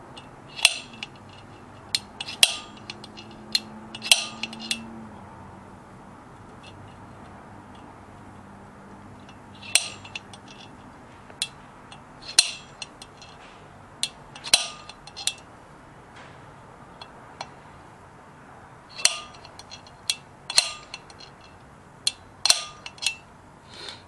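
A center punch snapping against a steel brake rotor, marking drill points through the lug holes of a 5-lug rotor laid over a 4-lug one. The sharp metallic clicks come in small groups of two or three, with pauses of several seconds between groups.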